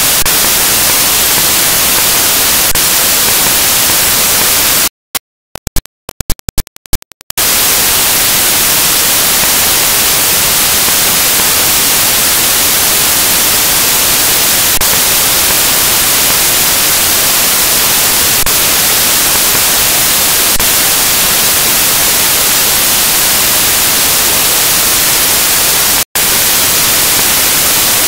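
Loud, steady white-noise static hiss. It cuts out to silence several times in quick succession about five to seven seconds in, and once more for an instant near the end.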